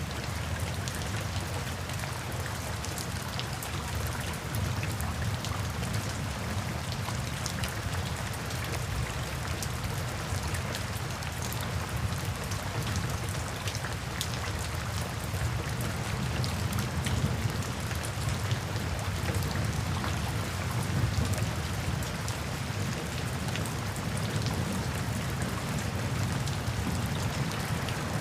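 Steady rain falling, with many individual drops pattering on a surface over an even hiss and a low rumble.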